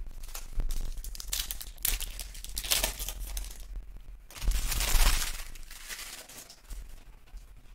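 Foil trading-card pack wrappers crinkling and tearing as packs are ripped open by hand, in a series of short rustling bursts, the loudest a little past halfway.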